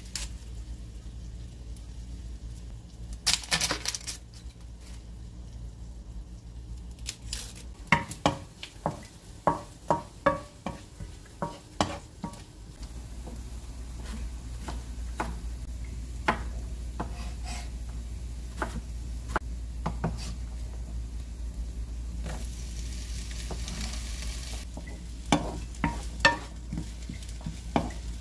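Kitchen prep sounds: a brief rustle a few seconds in, then a kitchen knife chopping potatoes on a wooden cutting board in a run of sharp knocks about two a second, with onions sizzling in a frying pan underneath. Near the end a wooden spoon stirs and knocks in the pan.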